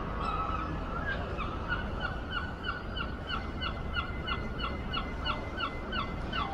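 Pedestrian crossing signal sounding a rapid run of short, falling 'pew' tones, about three a second, over steady street noise; this repeated signal means the green man is showing and it is safe to cross.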